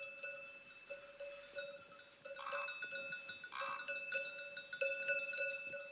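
Cowbells on grazing mountain cattle ringing with an irregular clanking as the cows move and butt heads, a steady ringing tone under many short clinks.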